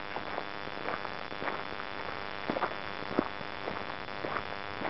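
Footsteps crunching on a gravel track at a steady walking pace, about two steps a second, over a steady chirring of insects.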